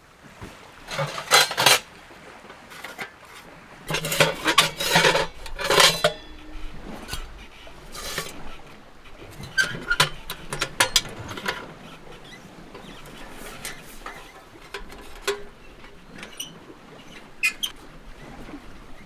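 Hard objects being handled: irregular bursts of clattering, knocking and rubbing, heaviest in two clusters early on and thinning to scattered clicks later.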